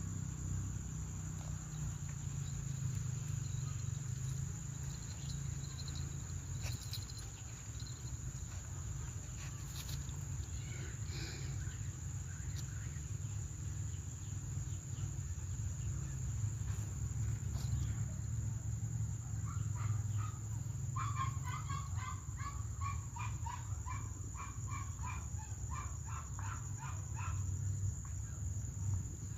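A steady high insect drone over a low rumble. About two-thirds of the way in, an animal calls a fast run of repeated notes, roughly three a second, for about seven seconds.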